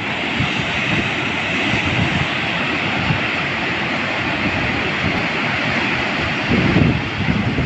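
A river in flood rushing over rocks in rapids, a steady rush of water. Wind buffets the microphone in gusts, strongest about six and a half seconds in.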